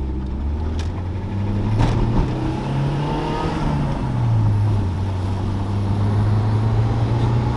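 Nissan SR20DET turbocharged four-cylinder running under way in a 180SX. The revs climb for a couple of seconds, drop about four seconds in, then hold steady. It runs smoothly on new fuel injectors, and the driver says it sounds back to normal, with the misfire gone.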